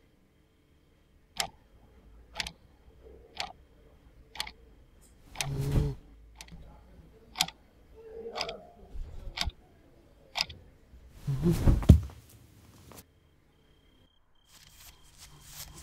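Wind-up alarm clock ticking, one sharp tick about every second. Two louder, noisier sounds break in, one near the middle and a longer one about twelve seconds in.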